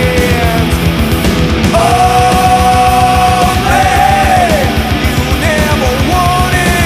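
Loud heavy rock music with fast, dense drumming and a singer, who holds one long note about two seconds in.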